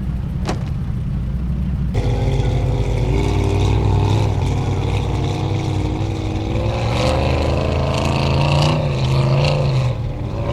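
Willys CJ5 off-road racer's engine revving hard. It comes in louder about two seconds in, and its pitch rises and falls as the throttle is worked.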